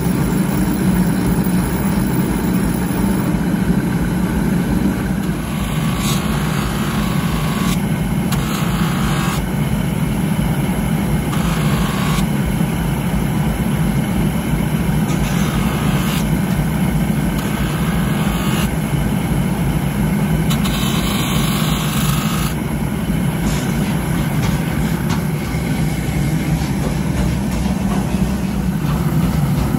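Motor-driven grinding wheel running with a steady low hum. About six times through the middle stretch, a harsher grinding sound lasting a second or two joins it as a forged steel hammer head is pressed against the wheel.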